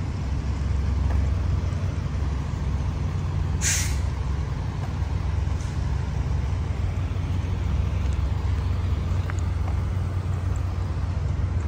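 Steady low rumble of idling diesel engines from parked fire apparatus, with one short hiss of air from a truck's air brakes about four seconds in.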